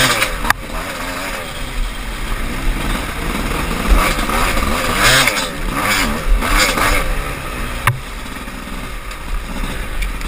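Off-road dirt bike engine, heard close from the bike itself, revving up and down as it is ridden over a muddy trail, its pitch rising and falling constantly. Hissy bursts come a few times around the middle, and there are two sharp knocks, one just after the start and one near the end.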